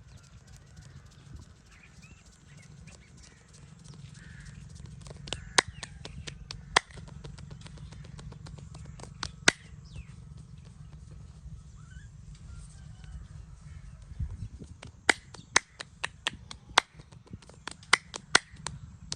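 Hands working over the head and back during a massage: a steady low rubbing sound broken by sharp snaps and cracks, a few scattered at first and then a quick run of them near the end.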